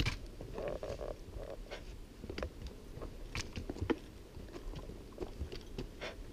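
Footsteps and trekking-pole taps on a rocky dirt trail: irregular crunches, scuffs and clicks, with the sharpest click right at the start.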